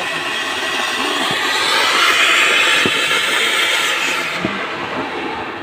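Ground fountain firework (anar) spraying sparks with a loud, steady hiss that swells about two seconds in and dies away near the end.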